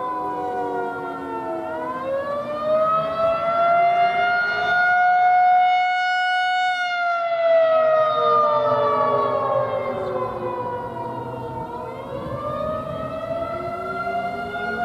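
Federal Signal 2001-130 outdoor warning siren sounding the Attack wail. Its pitch falls, rises over about four seconds, holds briefly at the top, falls slowly again, and starts rising once more near the end.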